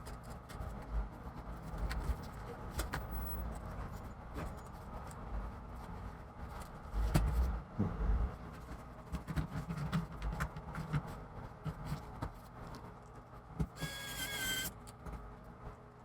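Handling noise of hands working on a laptop's plastic palm rest: scattered small clicks, taps and knocks of tools and parts, with a brief squeaky, wavering tone near the end.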